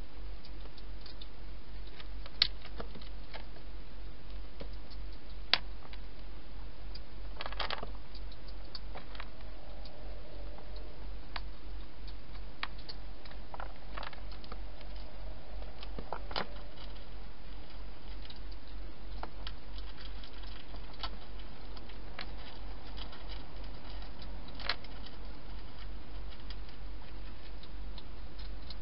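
Wild hedgehog feeding at bowls inside a plastic feeding station: scattered small clicks, taps and crunching, with a few sharper clicks in the first several seconds. A steady low hum runs underneath.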